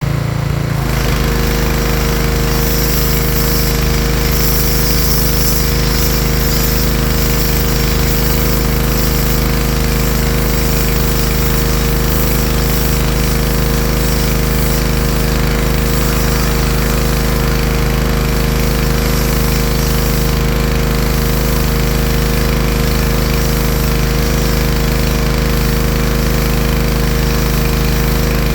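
Pressure washer running steadily, its motor and pump humming with a rapid low pulse under the hiss of the water jet on stone pavers. The steady run settles in about a second in.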